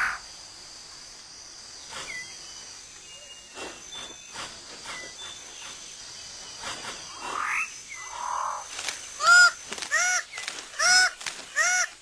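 Tropical rainforest ambience with faint scattered chirps and rising whistled notes, then from about nine seconds in a loud run of repeated animal calls, short arched notes about one or two a second.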